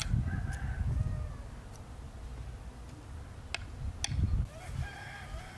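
A hoe blade chopping and scraping through loose soil, drawing earth over seed potatoes in a furrow, with two sharp clicks in the second half. An animal calls in the background near the start and again near the end.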